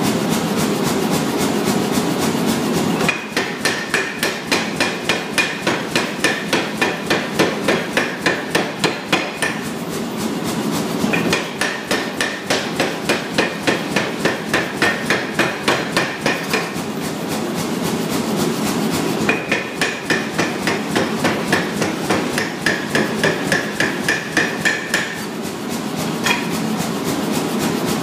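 Rapid, evenly spaced hammer blows on a 60 mm steel round bar being forged, about four blows a second with a ringing tone, in several runs of a few seconds each. A steady running noise fills the pauses between runs.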